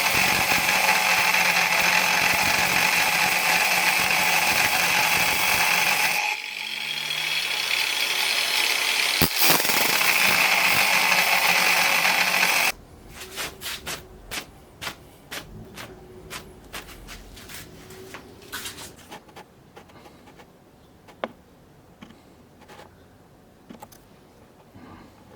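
Loud, steady metalworking noise that dips briefly about six seconds in, builds back up, and cuts off suddenly about halfway through. Scattered light ticks and taps on metal follow.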